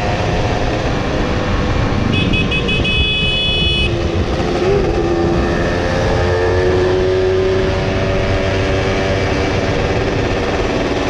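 Yamaha F1ZR two-stroke single-cylinder underbone engine running under way, its pitch drifting slowly up and down over a steady rushing noise; the bike is fitted with road-race gear ratios. About two seconds in there is a short series of high beeps.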